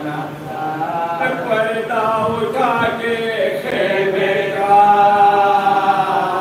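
Several men chanting an Urdu marsiya (Shia elegy) together without instruments, their voices rising and falling in a mournful melody, with one long held note near the end.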